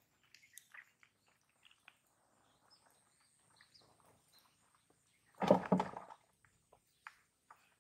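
Mostly quiet, with a faint, high, steady whine and scattered faint ticks. About five and a half seconds in there is a short scuffling burst of under a second as the fishing line and float are handled.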